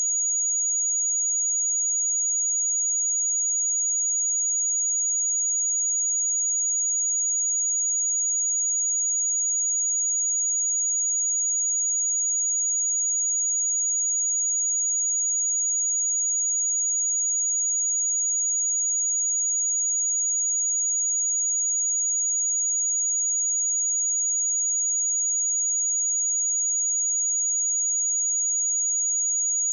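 A pure 6755 Hz sine-wave test tone, one high-pitched steady note held unchanged.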